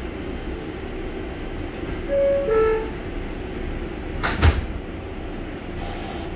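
New York City subway 7 train's door-closing chime, a two-note descending ding-dong about two seconds in, then the car doors sliding shut with a loud thud a couple of seconds later. A steady low hum of the stopped train runs underneath.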